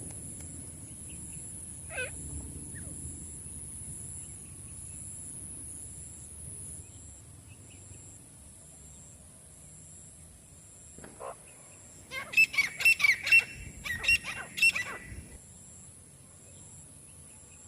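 Francolin (teetar) calling: a single short call early, then about twelve seconds in a run of loud, rapidly repeated harsh call notes lasting about three seconds.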